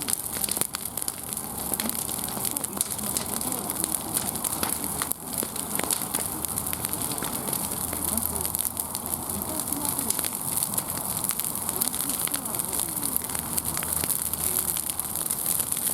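Wood fire crackling steadily, with a constant hiss and frequent irregular pops and snaps.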